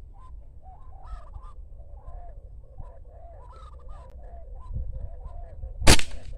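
Birds, fowl among them, calling in quick short notes, then a single sharp airgun shot near the end.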